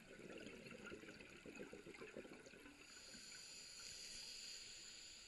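Faint underwater scuba breathing: exhaled bubbles burbling and crackling from the diver's regulator, giving way about three seconds in to a steady hiss as the diver breathes in.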